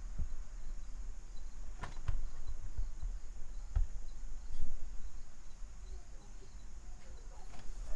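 A few sharp clicks and knocks from small metal cord clips and screws being fitted by hand, over a steady high-pitched insect chirring in the background.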